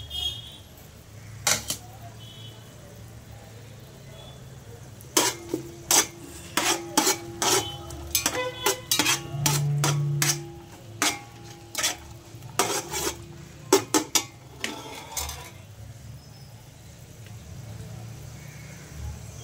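A perforated metal skimmer clinks and scrapes against a metal cooking pot while whole spices fry in hot oil. There is a run of sharp knocks, some ringing, through the middle, over a faint sizzle.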